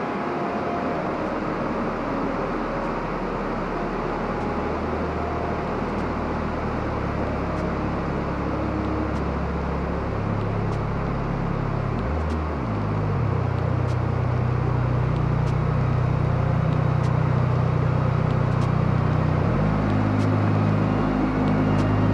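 Low steady motor hum of an MST CFX scale rock crawler's electric drivetrain as it crawls over rocks. The hum dips and rises in pitch briefly about twelve seconds in and again near the end, over a steady outdoor hiss.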